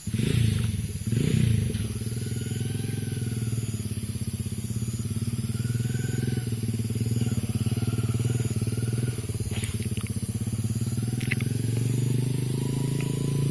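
An engine running steadily, starting abruptly, with a fast even pulsing.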